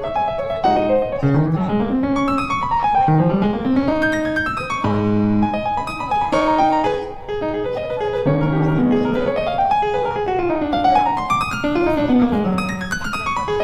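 Background music: piano playing quick rising and falling runs of notes.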